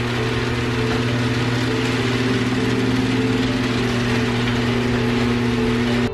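Car engine running steadily and loudly over background music, cutting off suddenly near the end.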